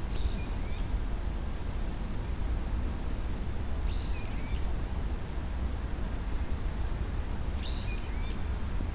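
A bird giving short chirping calls three times, about four seconds apart, over a steady low rumble of city background noise.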